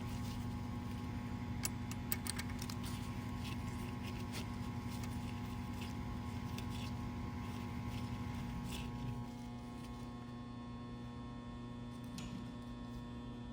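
Steady electrical mains hum, with scattered light metallic clicks and ticks from small screws and a hand tool being worked.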